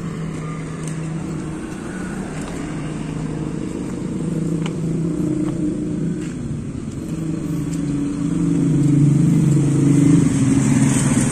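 A motor vehicle's engine running as a steady hum with a slight wavering pitch, growing louder about eight seconds in and easing off near the end.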